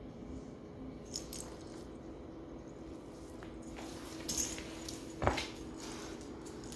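A few faint clicks and clinks over a steady low hum, with one a little louder a bit after the halfway point: a dog shifting about with its collar tags clinking, between bouts of vocalising.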